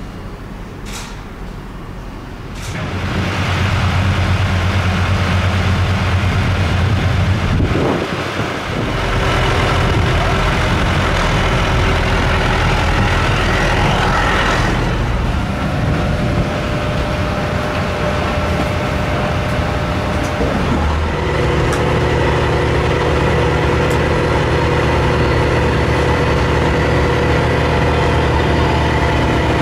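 Steady, loud machinery drone with a strong low hum and several steady tones around a parked Boeing 737-800 freighter. It dips briefly about eight seconds in, and around twenty-one seconds in higher steady tones join.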